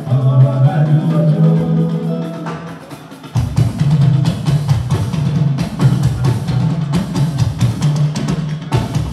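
Juju band music: drums and percussion over a steady bass line. The music eases briefly about a third of the way in, then comes back with busier drumming.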